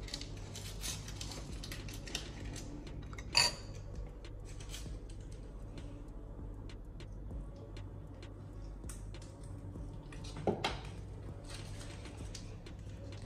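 Kitchen dishes and cutlery clinking and knocking on the counter over a steady low hum, with one loud ringing clink of a utensil on a bowl about three seconds in and another knock near the end.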